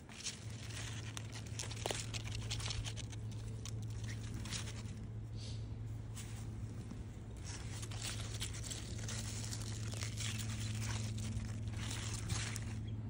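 Crackling, tearing rustles of pechay (bok choy) leaves and dry grass mulch being handled and cut with secateurs, with scattered sharp clicks, over a steady low hum.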